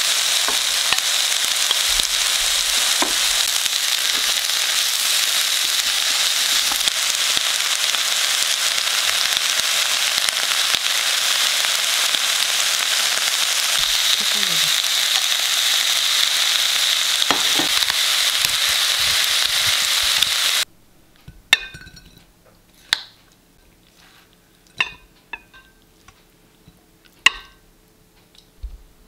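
Beef, shiitake mushrooms and vegetables sizzling steadily in hot oil in a wok as they are stir-fried, the hiss cutting off suddenly about two-thirds of the way through. Then a handful of sharp clinks and knocks of a spatula and pan as the stir-fry is tipped onto a plate.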